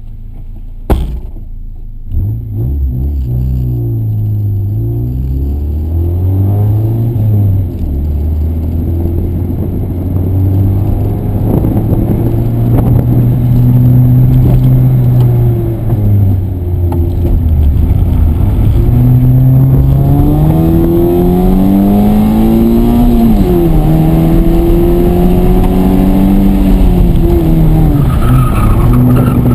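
Honda Civic rally car's four-cylinder engine heard from inside the cabin, pulling away and accelerating hard, its pitch climbing and then dropping again as it is driven up through the gears. A single sharp thump about a second in.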